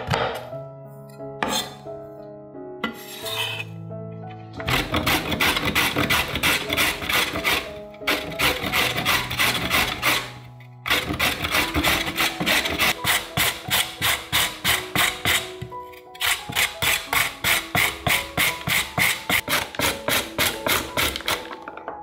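Carrot being grated on a flat stainless-steel hand grater: rapid rasping strokes, about three a second, starting about five seconds in with a few short pauses. Soft background music plays underneath.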